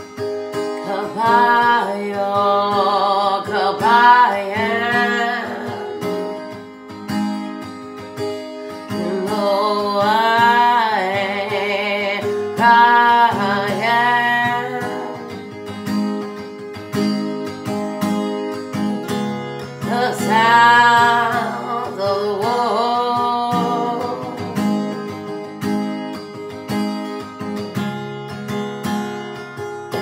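A woman singing while strumming a capoed acoustic guitar. Her voice comes in separate phrases over steady chords, and the last few seconds are mostly guitar alone.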